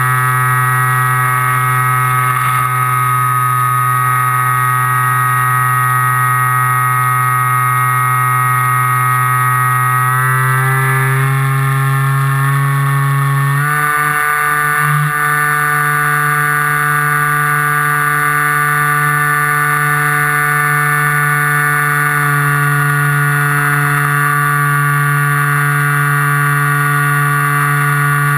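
FPV model aircraft's motor and propeller running steadily in flight, heard from on board. The pitch climbs from about ten seconds in and steps up again near fourteen seconds as the throttle is raised, then holds steady.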